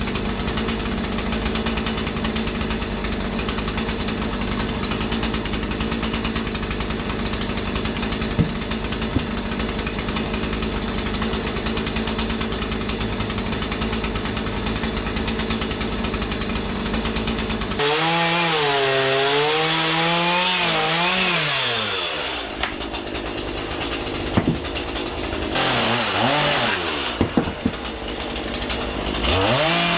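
Chainsaw carving wood at a steady high speed. About two-thirds of the way in the throttle comes off, and the engine note falls and rises several times as it is eased and blipped. A few light knocks come near the end before it revs up again.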